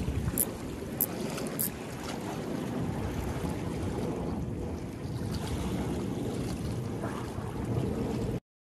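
Steady wind on the microphone with seawater washing against the seawall, and a few light clicks in the first two seconds as the spinning reel is handled. The sound cuts to silence near the end.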